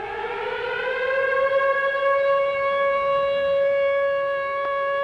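A siren rising in pitch over the first second or so, then holding one steady wail.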